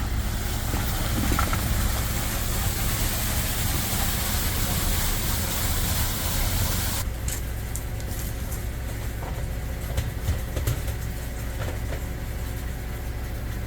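An engine idling steadily with a low hum, under a hiss that drops away about halfway through.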